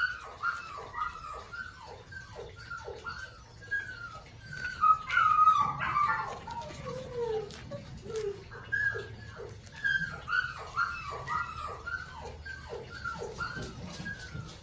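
Puppies whining: a run of short, high, falling whimpers, several a second, with a louder burst of overlapping whines about five seconds in and a longer falling whine just after.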